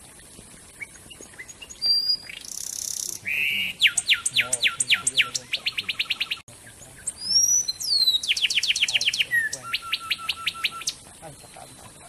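A wren singing two loud phrases, each a rapid series of clear down-slurred whistled notes that speeds into a quicker trill; the first begins about two seconds in and the second about a second after the first ends.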